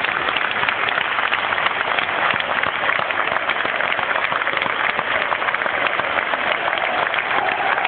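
Football crowd in the stands clapping and applauding: a dense, steady crackle of many hands with no break.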